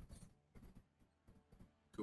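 Near silence, with a few faint, brief sounds.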